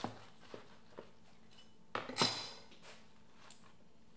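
Knife cutting through a crisp, coarse-salt-crusted rack of roasted lamb ribs on a cutting board: a few sharp cracks and knocks, with the loudest crunching cluster about two seconds in.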